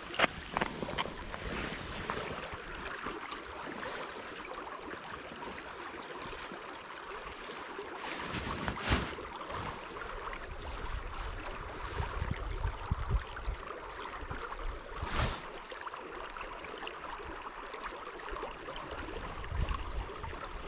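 Wind gusting on the microphone over a steady outdoor hiss, with a few sharp clicks, the loudest about 9 s and 15 s in.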